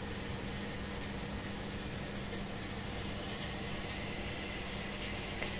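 Steady hum and hiss at an even level, with a constant low tone, and a couple of faint clicks near the end.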